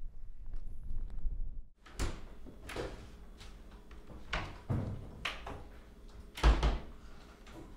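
Low wind rumble, then a house door being handled: a series of knocks and clunks as it is opened and pushed shut. The heaviest, deepest thud comes about two-thirds of the way in.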